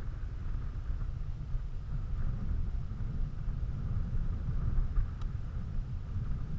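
Strong wind buffeting the camera's microphone: a continuous, gusting low rumble.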